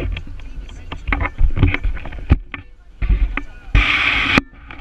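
Water slapping and knocking irregularly against the catamaran's hulls over a low wind rumble on the microphone, with a loud splash-like hiss about four seconds in.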